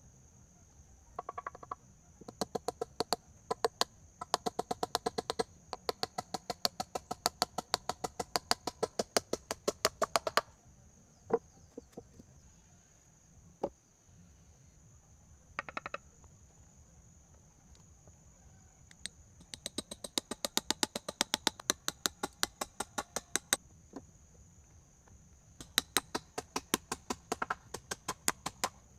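Runs of quick, sharp knocks, about five a second, stopping and starting three times, like a hand tool striking repeatedly during building work. A steady faint high buzz runs underneath.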